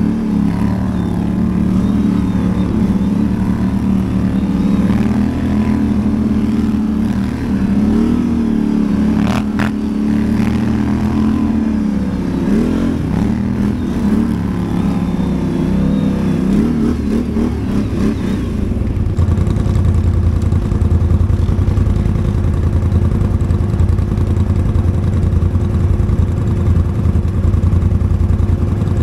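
ATV (quad bike) engine running with the throttle rising and falling, with one sharp click about a third of the way in. About two-thirds of the way in it settles to a steady, lower, fast-pulsing run.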